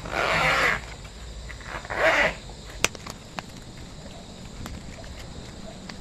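Plastic photocard binder sleeves being handled: two short bursts of plastic rustling in the first half, then a few light, sharp clicks and taps of plastic.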